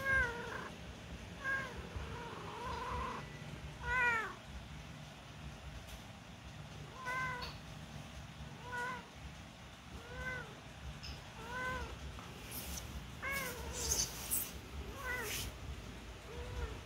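Newborn kittens mewing: about a dozen short, high mews, each rising and falling in pitch, coming every second or so with a pause of a couple of seconds early on. A few light clicks sound in among the later mews.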